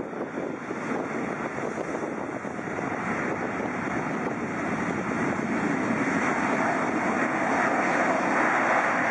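Jet engines of a Boeing 777-300 during its landing rollout: a steady rushing rumble that grows steadily louder.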